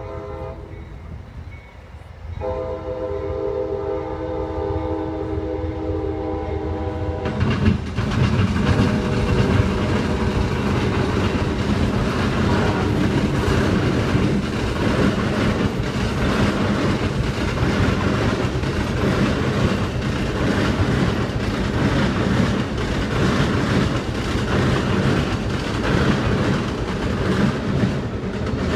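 Amtrak passenger train sounding its horn, faint at first, then one long chord lasting about five seconds. The train's cars then rumble and clatter steadily as they cross a railroad bridge.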